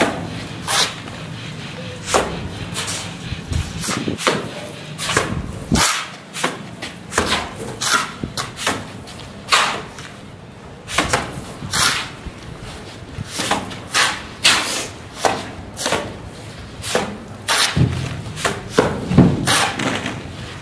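Wet cement-sand render flung from a steel trowel onto bare brick, a short wet slap with each throw, repeated about one to two times a second.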